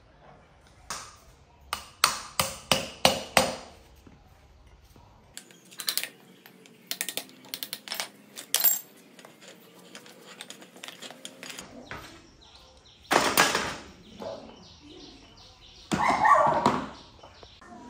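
Metal tools and motorcycle parts clanking and knocking on a tiled floor while a rusty front wheel and fork are dismantled, with a quick run of about six sharp knocks a couple of seconds in and scattered clinks afterwards.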